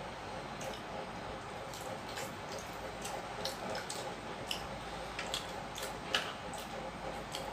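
Eating sounds: irregular wet clicks and squishes from chewing and from fingers working gravy-soaked food on metal plates, over a steady background hiss, with one sharper click about six seconds in.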